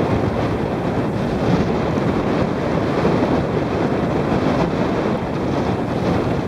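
Strong storm wind from Hurricane Sandy buffeting the microphone: a loud, steady, rumbling rush of wind noise.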